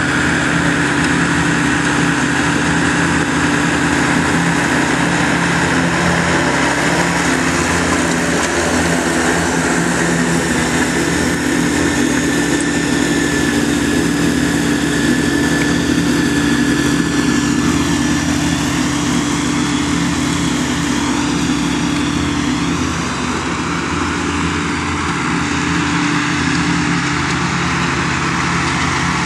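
Large Jacobsen mower's engine running steadily while mowing, with a faint high whine that wavers in pitch partway through; the sound eases slightly about three-quarters of the way in.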